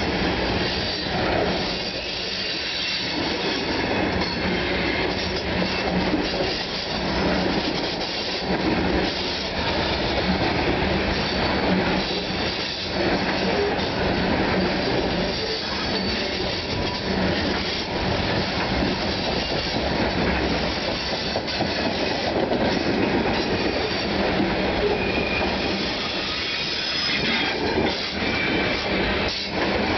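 CSX coal train's hopper cars rolling past close by: steel wheels running on the rail with a steady, loud rolling noise and a thin wheel squeal now and then.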